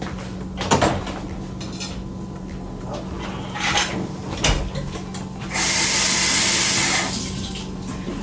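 Kitchen clatter of a few sharp knocks from pans and utensils, then a loud steady hiss of rushing noise for about a second and a half, over a steady low hum.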